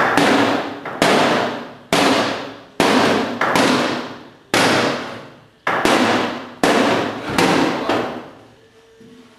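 Hammer pounding a dent out of a Toyota Land Cruiser's fender, about one heavy blow a second, each ringing and dying away. Nine blows, stopping about eight seconds in.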